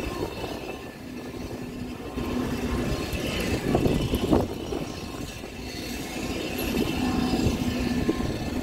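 Tornado carnival ride in motion: a rumble of the ride's machinery with a low steady hum, and rushing air that rises and falls as the car swings around.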